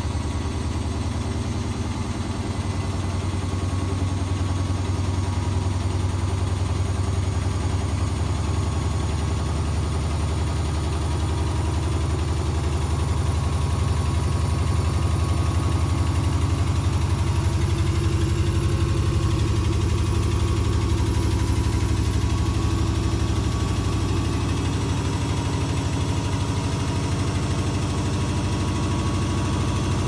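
Morris front-loading washing machine on its spin cycle with an unbalanced load: a steady low hum with a fast pulsing beat, growing a little louder a few seconds in.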